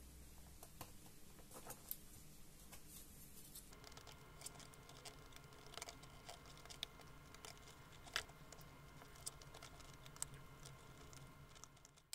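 Faint, scattered small clicks and taps of plastic being handled: a laptop display lid's edge pressed by hand and worked with a pry tool.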